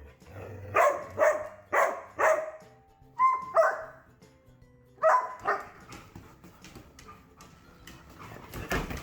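Dog barking in quick pairs of short, sharp barks, about eight barks over the first six seconds, then quieter rustling of dogs at play.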